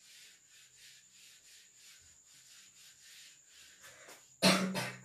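Whiteboard duster rubbing back and forth across a whiteboard in quick repeated strokes, wiping off marker writing. About four and a half seconds in, a brief voice sound cuts in, louder than the rubbing.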